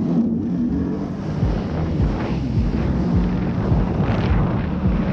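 Sea-Doo GTX 300 Limited jet ski's supercharged three-cylinder Rotax engine running steadily at speed. The hull thuds on the chop about twice a second, with wind on the microphone.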